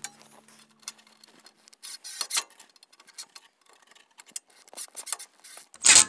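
Irregular light clicks and clinks of small metal hardware and a hand tool being handled while fastening parts, with a louder clatter near the end.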